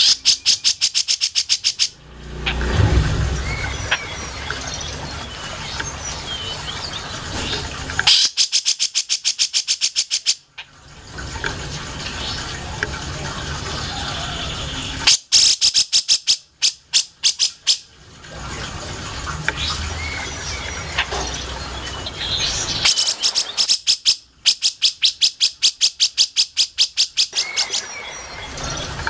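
Cucak jenggot (grey-cheeked bulbul) singing, with four bouts of fast rattling trills, each two to four seconds long, and scattered chirps in between.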